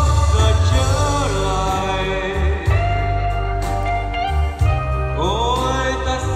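Music: a song with a singing voice over a strong, steady bass line.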